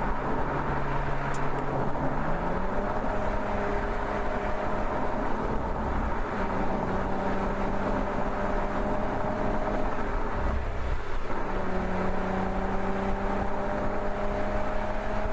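Mercedes-Benz SL engine running under load over steady road and tyre noise. Its pitch climbs about two seconds in and holds. It drops out briefly about ten seconds in, then climbs slowly again.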